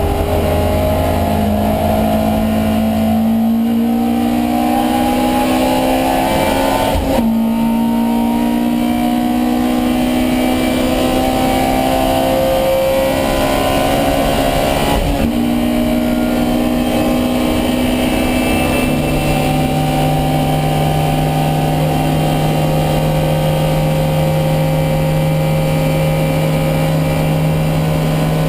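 Alfa Romeo Giulia 1600 racing car's twin-cam four-cylinder engine heard onboard, accelerating hard through the gears. The revs climb, drop sharply at upshifts about 7 and 15 seconds in, climb again, then hold a steady note for the last ten seconds.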